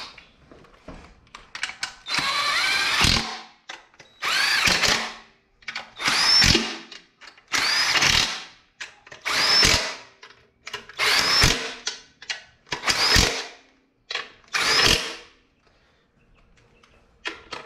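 Harbor Freight impact wrench run in eight short bursts, about one every second and a half to two seconds, each spinning up and winding down. It is running 12 mm nuts down onto the intake runner studs with one or two hits each.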